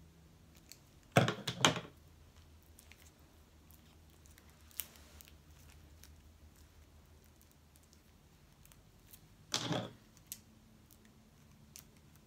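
Plastic shrink wrap being cut and pulled off a card deck with scissors. Light snips and clicks run throughout, with two close loud bursts of crinkling plastic about a second in and another burst near the end.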